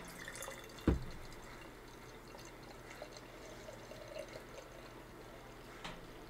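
Hard cider poured from a can into a glass mason jar: a faint, steady stream of liquid filling the glass. A dull knock about a second in.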